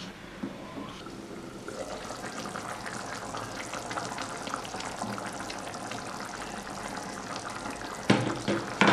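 Rohu fish and sweet pumpkin curry boiling in an open pot, a steady fine crackling bubble that comes up about two seconds in. Two louder knocks near the end.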